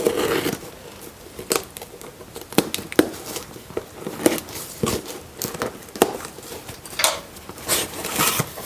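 A mailed package being opened by hand: packaging torn and crinkled, with irregular sharp clicks and rustles.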